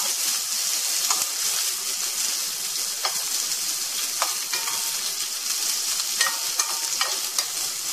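Chopped onions sizzling in hot ghee and oil in a nonstick kadai while being stirred, with a few sharp scrapes and taps of the slotted spatula against the pan.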